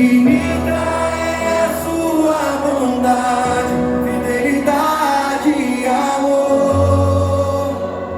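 Worship music: a praise song sung over instrumental backing, with long held bass notes beneath the singing.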